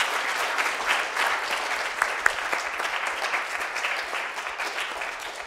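Audience applauding: many hands clapping steadily, easing off a little near the end.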